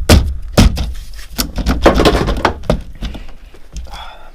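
Repeated hard thuds and knocks as a BMW E36 steering wheel is struck and jerked by hand to free it from the steering column, with the retaining bolt left loosely in place. The hits are heaviest in the first second, followed by a rattling stretch and lighter knocks.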